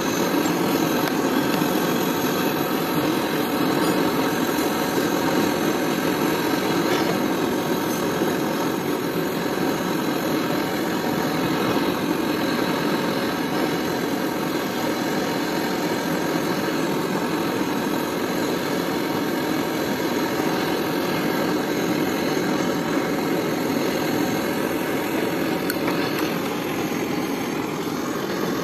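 Gas brazing torch burning with a steady rushing roar, its flame heating the copper pipe joint at the split AC outdoor unit's service valve so the leaking valve can be unsoldered and replaced.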